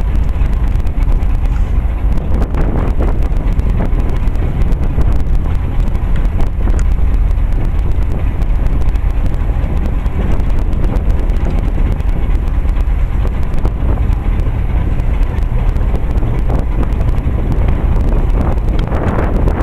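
Wind buffeting the camera microphone: a loud, steady, fluctuating low rumble with no clear pitch.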